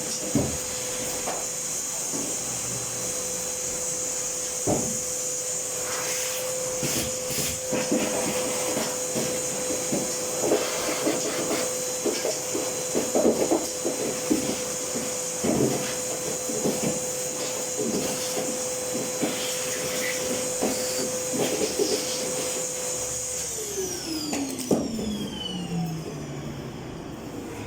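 A dryer spinning with a steady motor whine and many irregular knocks and rattles. This is the noisy spinning that the repairer puts down to a damaged bearing housing. Near the end it is switched off and the whine falls in pitch as it winds down.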